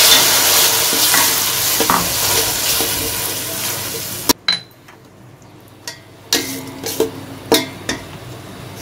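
Ground tomatoes sizzling in hot oil with fried onions in a steel pot, stirred with a metal slotted spatula that scrapes and clicks against the pot. The sizzling cuts off suddenly about four seconds in and comes back fainter, with a few sharp spatula clicks near the end.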